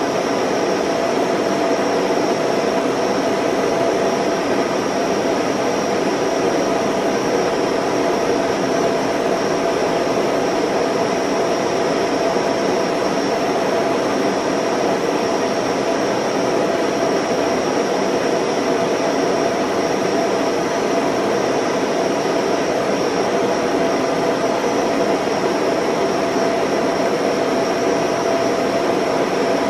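Steady mechanical whirring with a constant hum and no separate events, typical of a home-movie film projector running while silent 8mm film is played.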